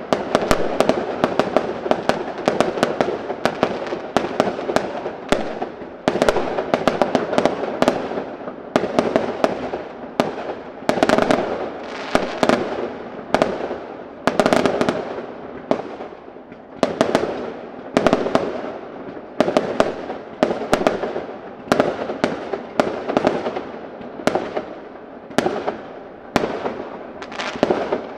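Fireworks display: a rapid, unbroken barrage of aerial shell bursts, sharp bangs several a second that swell into louder volleys every second or two.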